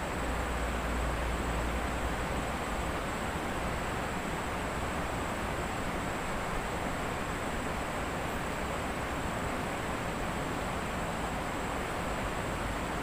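Steady rushing of river water, with a low wind rumble on the microphone during the first second or so.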